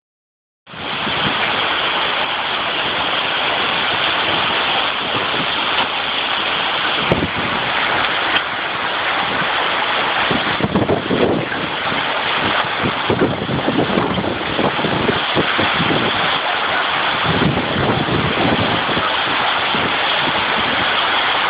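Torrential rain and strong wind of a severe storm: a loud, steady downpour that sets in a moment in, with gusts surging irregularly from about ten seconds in.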